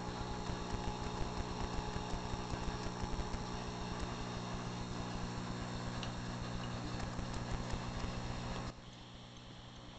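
Saltwater aquarium equipment running: a steady electrical hum from the pumps under a dense crackle of rising air bubbles and moving water. The noise drops noticeably quieter near the end.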